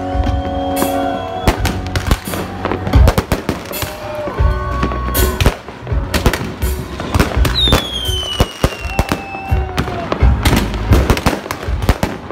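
Fireworks going off in quick succession, many sharp bangs and cracks of aerial shells and firecrackers, with a whistle falling in pitch about two-thirds of the way through. Music plays underneath.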